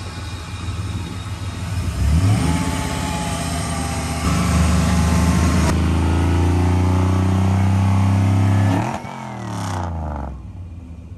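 A 1958 Corvette restomod's LS7 V8 engine running at idle, then revved about two seconds in. It is held at raised revs for about four seconds before the revs fall back toward idle near the end.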